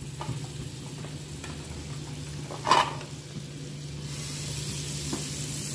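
Amul butter melting and sizzling on a hot flat tawa, with a wooden spatula scraping it along the pan. The sizzle grows louder about four seconds in as the butter begins to foam. A single sharp knock comes about halfway through.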